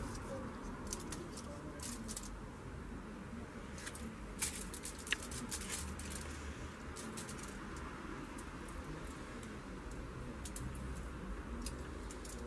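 Scattered light clicks and crinkles of gingerbread pieces being handled and pressed together on an aluminium-foil-covered board, with two sharper ticks about four and five seconds in, over a steady low background noise.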